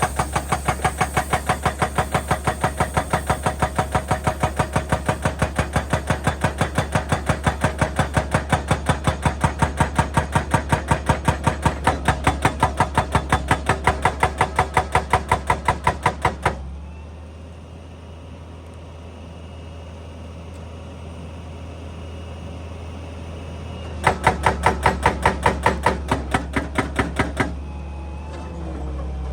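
Excavator-mounted hydraulic breaker hammering rock in rapid, even blows over the running diesel engine. The hammering stops about 17 seconds in, leaving the engine running, then starts again for about three seconds near the end.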